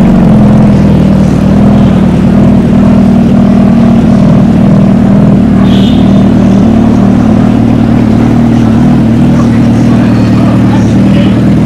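Motor-vehicle engine running loud and steady at held revs, its pitch staying level.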